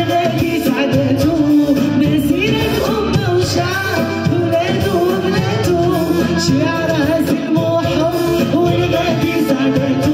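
Woman singing a Moroccan patriotic song live through a PA, backed by violin and a drum kit.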